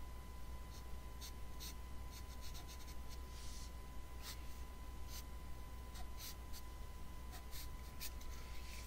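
A pen scratching on paper in short, irregular strokes as a sketch is drawn, over a steady low hum.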